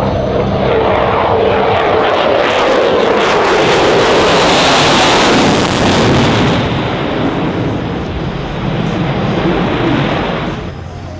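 F-22 Raptor and A-1 Skyraider making a loud heritage-flight formation pass. Engine noise builds to a peak about five seconds in, with a falling pitch as the aircraft go by, then fades away and drops off near the end.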